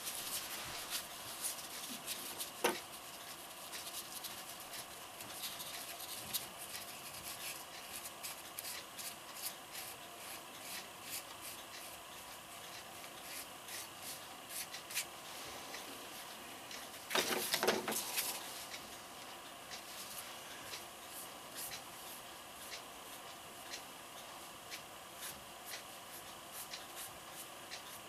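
Gloved hand rubbing over a fresh cement patch on a concrete statue's leg, a light scratchy rubbing with many small clicks and one louder scraping stretch of about a second past the middle.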